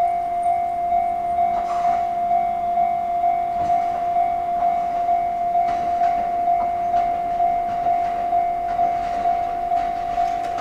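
Japanese level-crossing warning bell ringing in an even rhythm of about two strokes a second, with faint train noise beneath.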